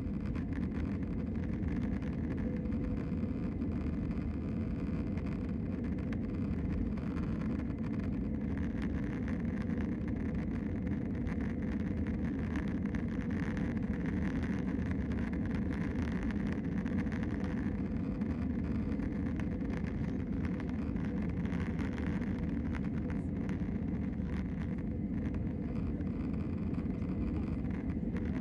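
Steady low cabin noise of an Airbus A320-216 climbing out after takeoff: its CFM56 jet engines and the rushing airflow, heard from inside the passenger cabin.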